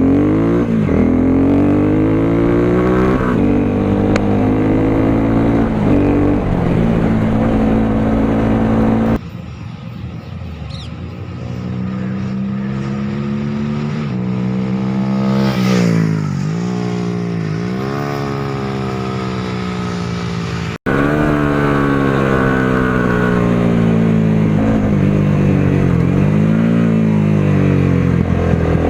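Honda CBR250R's single-cylinder engine through an Akrapovic exhaust with the dB killer removed, revving up through the gears, its pitch climbing and then dropping at each shift. In the quieter middle stretch the bike goes by, its pitch dipping as it passes, then it revs hard through the gears again up close.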